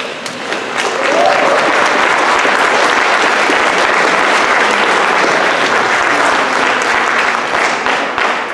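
Audience applauding, swelling about a second in and beginning to fade near the end.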